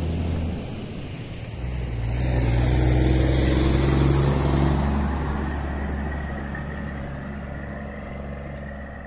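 Diesel engine of a semi-truck tractor-trailer running with a low, steady drone as it passes close by, growing louder to a peak about three to four seconds in and then fading.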